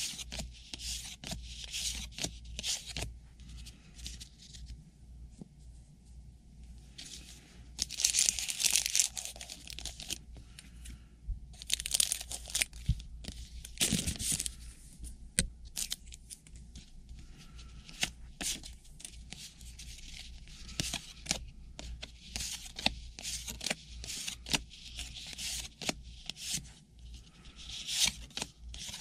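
Trading-card pack wrappers being torn open and crinkling, with cards being handled and flipped in between. The loudest tearing comes about 8 seconds in, again around 12 to 14 seconds, and near the end.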